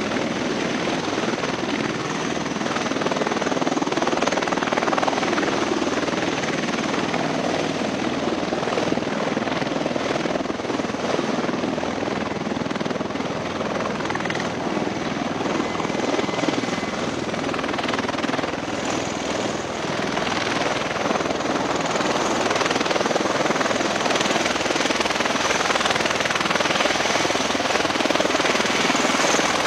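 V-22 Osprey tiltrotor running: a steady rush of proprotor and turbine engine noise, with a thin high whine above it.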